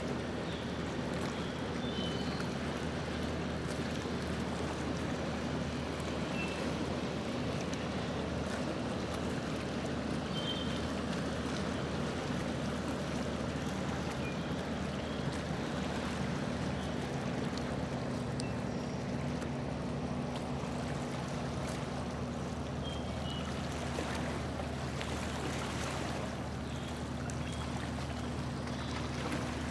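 Boat engine running at a steady cruise, a low even drone, with water washing along the hull.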